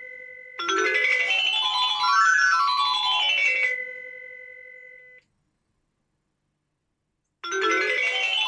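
A pager's electronic ring tone: a quick melody of bright beeping notes rippling up and down, ending in held tones that fade and cut off about five seconds in. It starts again near the end.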